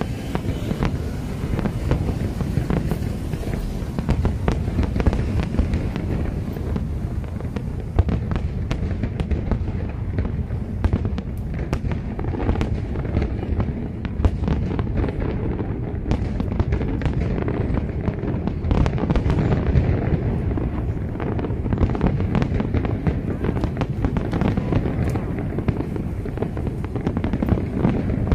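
Aerial fireworks display: shells bursting one on top of another in a continuous barrage of deep booms, with sharper cracks and crackle throughout.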